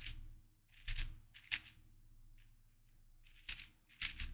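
Plastic layers of a YJ MGC 4x4 speedcube being turned by hand: a handful of short, separate clicking, scraping turns.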